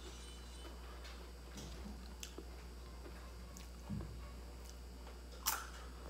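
Crispy fried crackers being eaten: light clicky chewing, then one sharp crunch as a fresh chip is bitten about five and a half seconds in.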